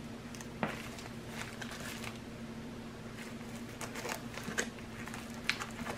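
A plastic bubble mailer being handled and cut open with scissors: faint crinkling and a scattering of soft clicks and snips.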